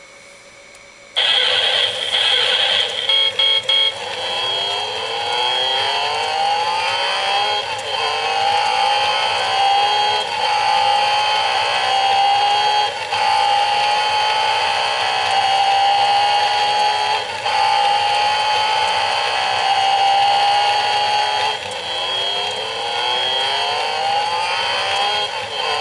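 Race-car sound effect from a novelty brake-disc desk clock: a recorded racing engine revving up through the gears, its pitch climbing and dropping back at each shift, played through the clock's small speaker with little bass. It starts suddenly about a second in.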